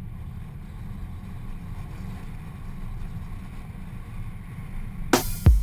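Low, steady rumble of a car driving slowly, heard from a camera mounted on the car, with some wind on the microphone. About five seconds in, loud music starts with heavy drum hits.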